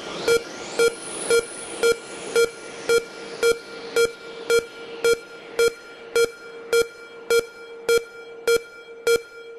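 Electronic dance track in a stripped-down breakdown: a short synth beep repeats evenly about twice a second, with a rising sweep fading out over the first few seconds.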